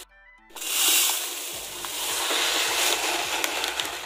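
Dry basmati rice poured from its bag into a steel bowl: a rushing, hissing patter of grains that starts suddenly about half a second in and is loudest near the start, with small ticks of grains on the metal.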